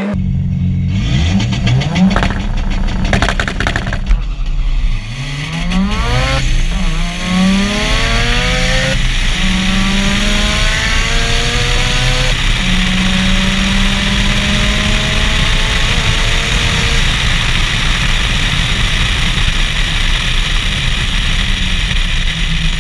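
Turbocharged race car engine accelerating hard at full throttle, its pitch climbing and dropping back at several gear shifts, with a spell of crackling early on. It then holds high speed under a steady rush of wind and road noise, heard from a camera riding in the car.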